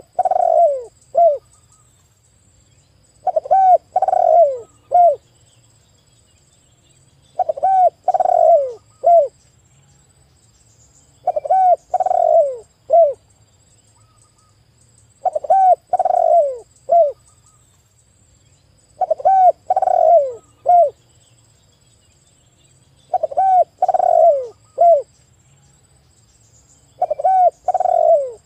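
Spotted dove (tekukur) cooing, repeating the same phrase about every four seconds: a couple of short coos, a longer falling coo, then a short final note.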